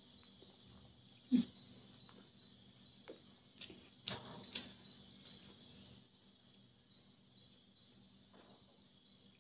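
Quiet mouth sounds of a person eating rice and curry by hand: chewing and a few wet lip smacks, with a short low knock about a second and a half in. A steady high-pitched hum runs underneath.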